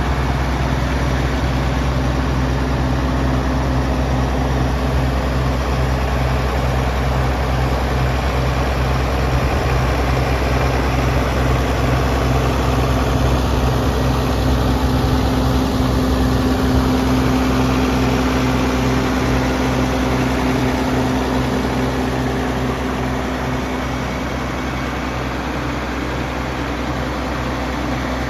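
A vintage Oliver tractor engine idling steadily with an even low pulse, a little louder through the middle.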